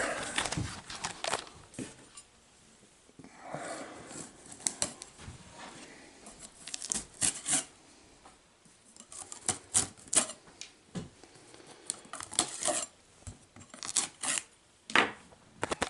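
Hands handling a cardboard shipping box: scattered irregular taps, clicks and scrapes, with a longer stretch of rustling about three to five seconds in.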